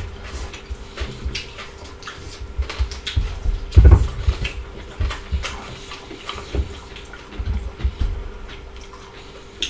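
Close-miked chewing and wet mouth sounds of two people eating fried pork ribs, rice and vegetable salad with their hands, with many small clicks and smacks and a louder low thump about four seconds in. A faint steady hum runs underneath.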